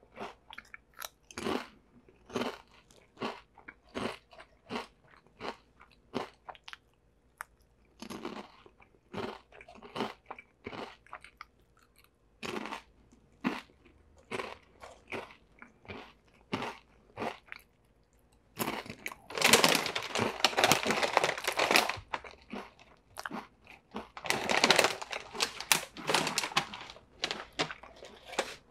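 Close-up crunching and chewing of Orion Sun Chip corn chips, a crisp crunch every second or so as bites are taken and chewed. In the second half come two longer, louder spells of dense crackling.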